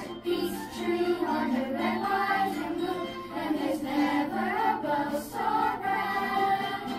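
A song sung by a group of voices, with music.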